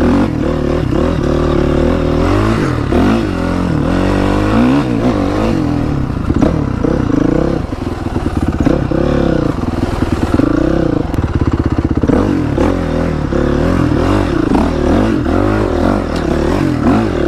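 Honda CRF450R four-stroke single-cylinder dirt bike engine under way on a trail, its pitch rising and falling again and again as the throttle is opened and closed.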